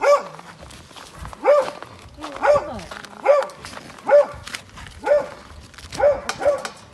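A dog barking over and over, about one bark a second, each a short bark that rises and falls in pitch, the last two coming close together.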